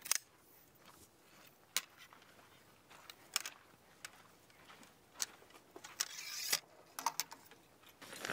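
Camping gear being handled during tent setup: scattered light clicks and knocks, with a brief rustle about six seconds in.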